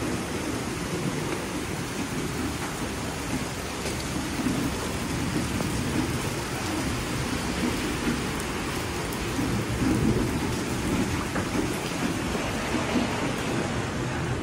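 Rain falling steadily, with a low rumble underneath that swells a little about two-thirds of the way through.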